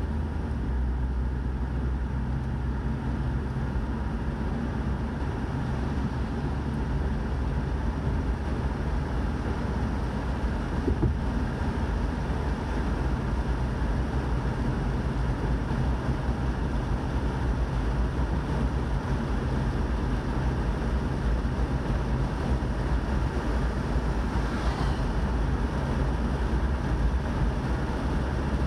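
Steady low rumble of a car driving at highway speed, heard from inside the cabin: engine and tyre road noise.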